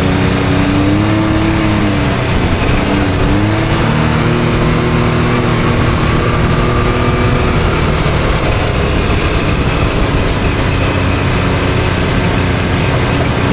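Can-Am Maverick X3 side-by-side's turbocharged three-cylinder engine running as it drives the trail, its revs rising and falling, over a steady rush of noise.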